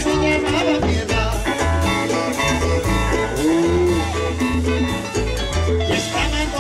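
Live cumbia band playing a dance tune: a stepping bass line under held melody notes, with steady percussion.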